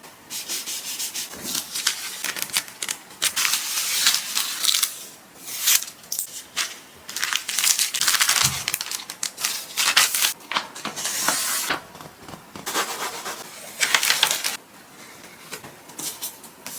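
Crinkling and rustling of a plastic wet-wipe pack being handled up close, in bursts of a second or two with short pauses between them.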